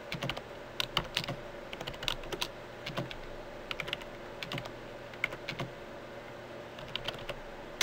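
Computer keyboard being typed on: irregular clicking keystrokes, some in quick runs, with short pauses between.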